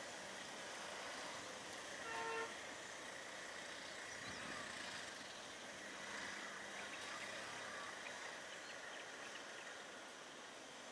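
A vehicle horn toots once, briefly, about two seconds in, over a steady background hiss.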